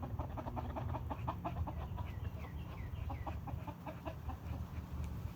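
Chickens clucking in a rapid string of short calls, with a run of short high falling calls around the middle, over a steady low rumble.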